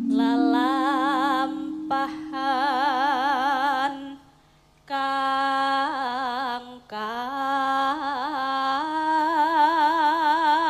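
A singer holding long, slow notes with a wide vibrato in a Javanese song, over a steady low sustained accompanying tone. The phrase breaks off for under a second a little before the middle, then resumes.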